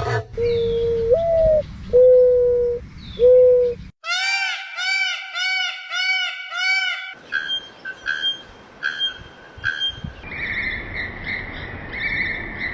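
Calls of several different birds, one clip after another. First come three long, steady whistled notes, the first rising in pitch partway through. Then a run of about six ringing, arched notes, then short repeated higher calls, and last a steady high, wavering trill.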